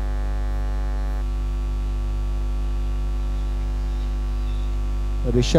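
Steady electrical mains hum with a buzz of higher overtones, unchanging throughout.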